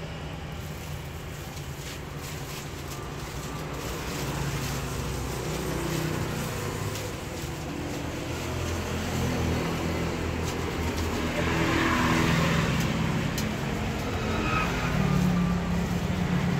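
Street traffic: motor vehicle engines running and passing by, growing louder through the middle and later part.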